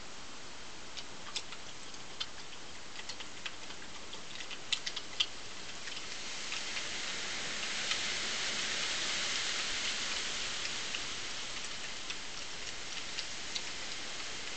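Badger feeding: scattered sharp crunching clicks of its teeth on the food, over a steady hiss. A broad hiss swells up about six seconds in and fades again a few seconds later.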